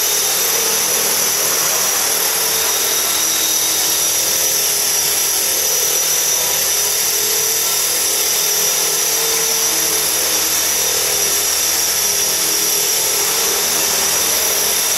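Electric radio-controlled helicopter flying, its motor, gears and spinning rotors giving a steady high whine.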